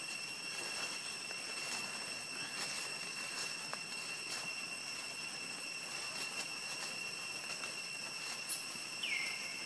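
Steady high-pitched insect drone in tropical forest, one unbroken tone with overtones, with scattered light clicks and a short falling call near the end.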